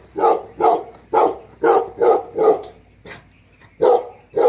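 Tibetan mastiff barking in a steady run, about two barks a second, with a pause of about a second near three seconds in before barking again.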